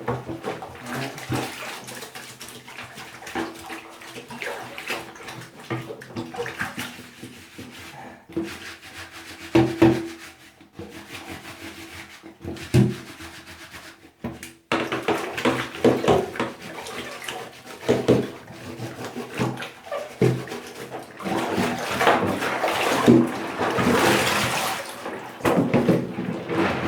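Soapy water sloshing and splashing as Lego pieces and a plastic container are washed by hand, with many small irregular knocks. It grows louder about halfway through.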